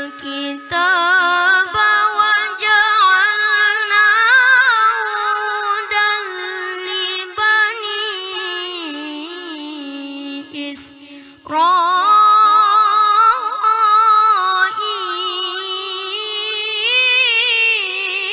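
A boy's voice reciting the Quran melodically through a microphone, drawing out long held notes with wavering ornaments. Near the middle it pauses briefly for breath, then a new phrase starts on a high note.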